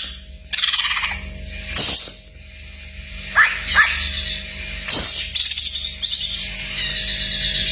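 Cucak ijo (green leafbird) singing a fast, varied song full of imitated phrases: sharp down-slurred whistles about three and a half and four and five seconds in, separated by rapid buzzy trills and chirps.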